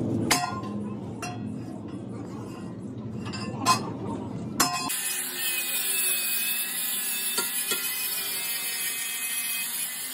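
Several sharp metallic clinks, then from about five seconds in an angle grinder grinding steel: a steady high whine over a hiss.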